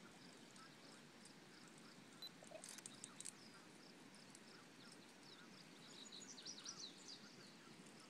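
Near silence outdoors, with faint, quickly repeated high chirps in the background, a few faint clicks about three seconds in, and a short flurry of chirps near the end.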